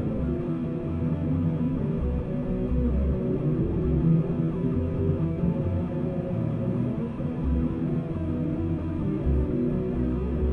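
Instrumental music: guitars playing over a moving bass line, with no singing.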